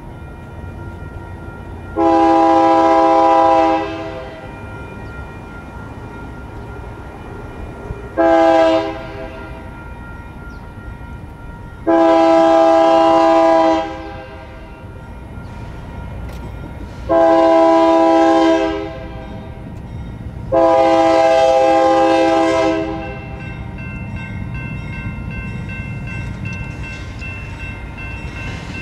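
Air horn of a BNSF GE C44-9W diesel locomotive sounding five chord blasts: a long one, a short one, then three long ones. Under and after the blasts is the low rumble of the approaching train, which grows louder near the end.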